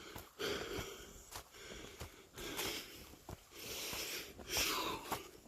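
A person breathing hard while walking uphill, with a loud breath roughly every second and a few light clicks between.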